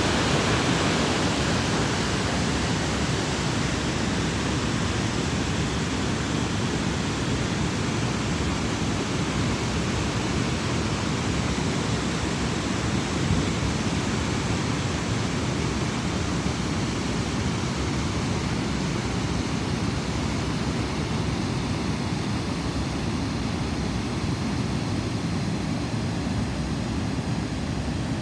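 Steady rushing of river water churning white over rapids or a low weir, a constant even roar with no breaks.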